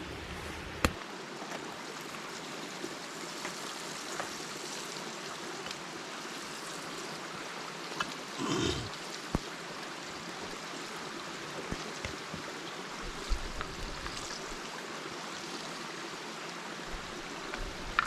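Steady rush of flowing water, with a few scattered sharp clicks and one brief louder sound about halfway through.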